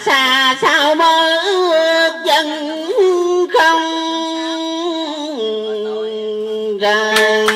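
A man singing into a microphone in a Vietnamese folk style, with wavering, ornamented phrases, then a long held note in the second half. A plucked-string accompaniment comes in near the end.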